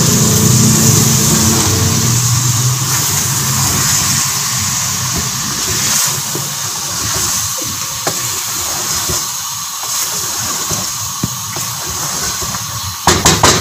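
Chicken pakora masala sizzling in an aluminium pot while a wooden spatula stirs and scrapes through it, a steady hiss with small scraping clicks. A low hum fades out about two seconds in, and a few loud knocks come near the end.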